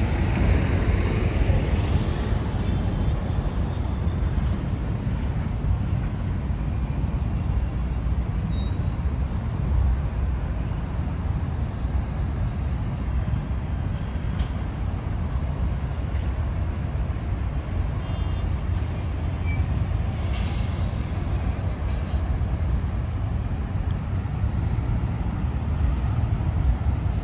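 Steady city traffic noise, a low rumble of cars and buses, with a brief hiss about twenty seconds in.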